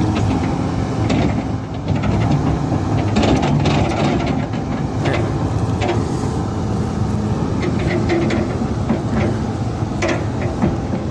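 Kobelco SK260 excavator's diesel engine running steadily under load while digging out a tree stump, with scattered knocks and cracks throughout.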